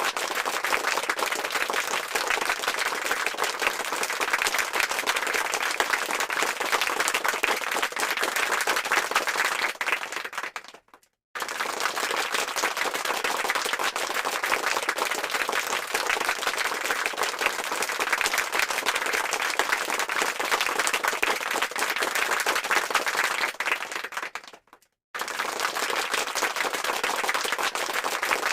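Applause sound effect: a crowd clapping steadily in a dense patter. It fades out and cuts to a moment of silence about a third of the way in and again near the end, restarting abruptly each time.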